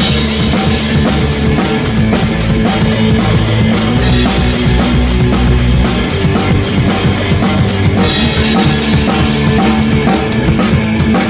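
Loud rock music led by a drum kit, with kick drum, snare and cymbals keeping a steady beat under the band.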